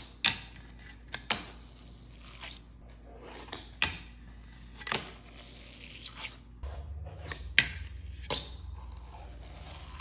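Fingerboard clacking on a granite countertop as tricks are done: about nine sharp clacks of the board popping and landing on the stone, with lighter scraping and rolling between them.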